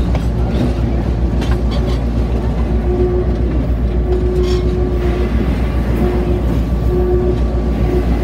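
Cog railway train running along its rack track: a steady low rumble with a humming tone that comes and goes, and a few light clicks from the running gear.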